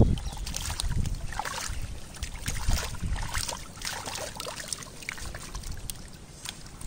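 Hands squelching and sloshing through thick wet mud, with many short wet smacks and crackles, busiest in the first few seconds.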